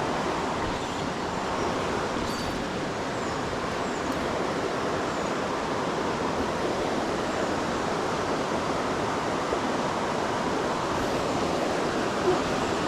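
Steady rush of a small creek running high and fast after heavy rain.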